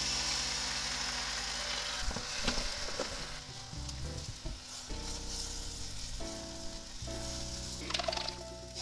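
Beaten egg mixture for dashimaki tamago sizzling as it is poured into a hot oiled frying pan and spread into a thin layer; the sizzle is loudest at first and slowly dies down as the layer sets.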